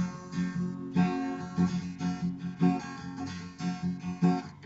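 Acoustic guitar strumming a steady rhythm of chords, with no voice, in an instrumental break of a love song.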